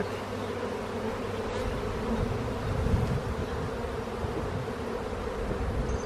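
Honey bees buzzing in a steady hum around an open, crowded hive.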